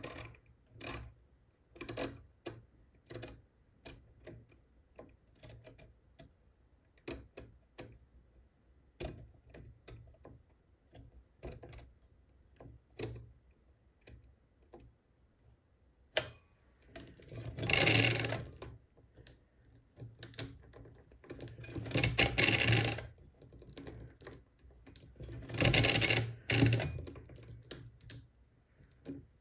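Odhner Model 8 pinwheel calculator: its input levers click into place one after another in small sharp clicks. Then the crank is turned three times, each turn a clattering mechanical ratchet of about a second, adding 123456789 into the result register three times. This multiplies the entered number by three.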